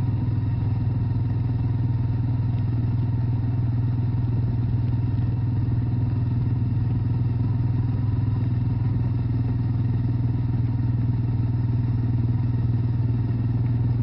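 Quad bike engine running at a steady speed as the bike is ridden, a low, even drone.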